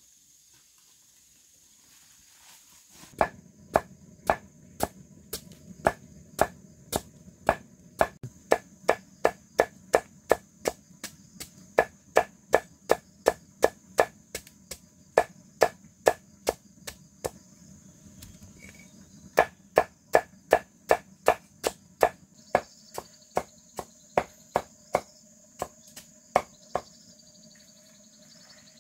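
Rhythmic chopping, sharp strikes about two a second starting about three seconds in, with a short break past the middle. Crickets chirr steadily in the background.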